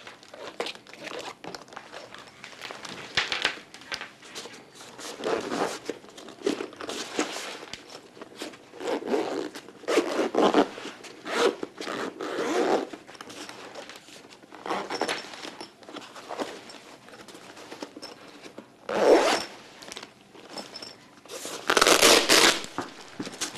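A padded nylon carry bag for an infusion pump being closed and handled: a zip drawn in a series of short scraping pulls, with fabric rustling between them. The loudest strokes come near the end.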